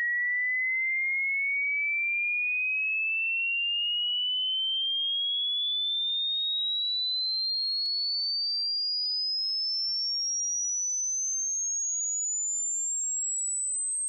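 Pure sine test tone sweeping steadily upward in pitch, from about 2,100 to about 8,000 hertz: a hearing-test frequency sweep.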